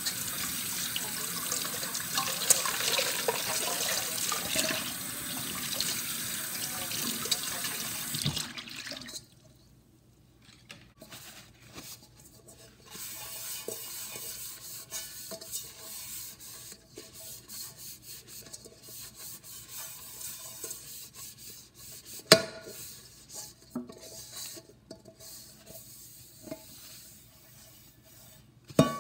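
Tap water running into a stainless steel sink, shut off about a third of the way through. Then a hand wipes the inside of a rice cooker's non-stick inner pot with a cloth, in soft, patchy rubbing, and the pot knocks sharply against the sink twice.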